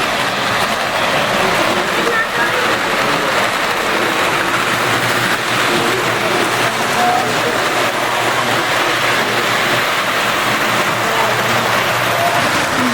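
Steady hubbub of a model train show: O scale Lionel trains running on their layouts amid the chatter of the crowd.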